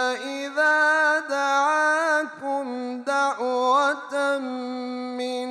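A man chanting Quran recitation in a melodic style, drawing out long sustained notes with ornamented turns in pitch and a few short pauses for breath between phrases.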